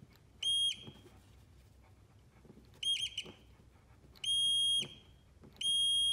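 Digital multimeter's continuity beeper sounding four short times, the second one stuttering, as a reverse-light switch's plunger is pressed in and released. The beep means the switch closes the circuit, so the new switch is good.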